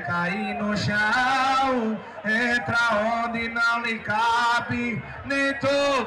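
Live forró band: a man sings phrase after phrase over a steady low note from the band, with short breaks between lines.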